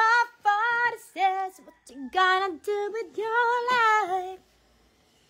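A woman singing unaccompanied, a string of held notes in short phrases, breaking off about four and a half seconds in.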